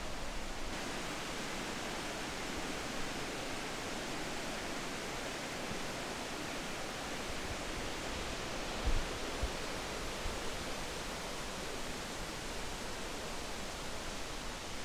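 Steady rushing wind noise over the microphone while riding, with two brief low thumps about nine seconds in.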